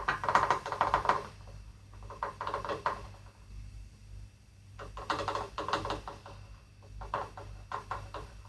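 Engine oil glugging out of a bottle into a funnel on a small mower engine, in four bursts of rapid gurgling clicks with short pauses between.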